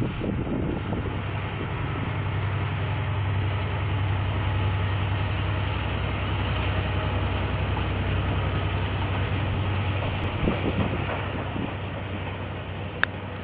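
KiwiRail diesel train passing: a steady low engine drone over the rumble of wheels on the rails, loudest in the middle and easing toward the end. A brief sharp click near the end.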